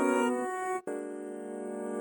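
Background music: sustained instrumental chords, the chord changing about a second in.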